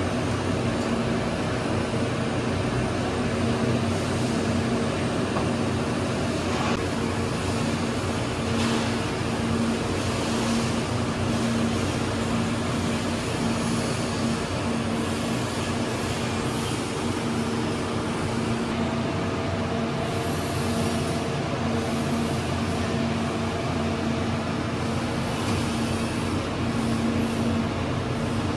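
Steady hum and hiss of running equipment, with a constant low tone and its overtones, and a few faint clicks and rustles of handling.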